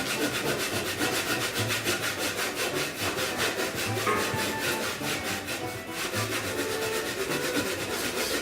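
Hand saw cutting through wood with quick, even strokes, about four or five a second, with a brief pause near six seconds in.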